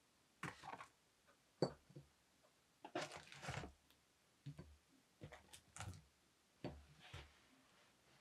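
Handling of a paperboard pastry box and bungeoppang: light rustling and soft taps in short separate bursts, about seven times, as the fish-shaped pastries are lifted out of the box and set on a ceramic plate.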